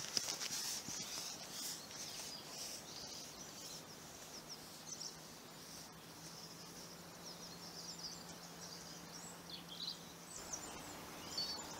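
Small birds chirping and calling in woodland over a faint outdoor background. Footsteps on the leaf- and pine-needle-covered path are heard in the first second or so, then fade as the walker moves away.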